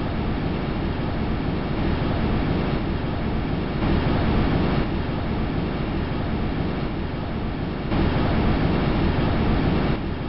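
Wind rushing past the Huygens probe as it fell through Titan's atmosphere, as recorded by the probe: a steady rushing noise with no tones, a little louder about four seconds in and again around eight seconds.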